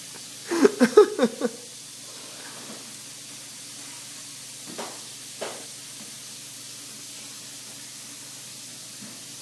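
A kitchen sink tap running steadily, an even hiss of water. A brief burst of voice, several short loud pulses, comes about half a second in.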